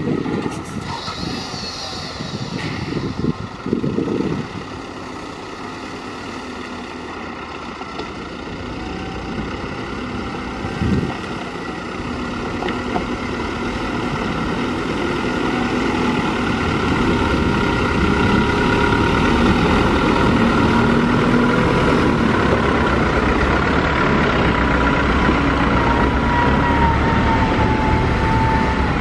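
LiuGong 836 wheel loader's diesel engine working under load. It grows steadily louder through the middle of the stretch and stays high as the loader pushes its bucket into a stone pile, with a steady whine over the engine. Near the start there are a few loud bursts as stones tip from the raised bucket into a dump truck's bed.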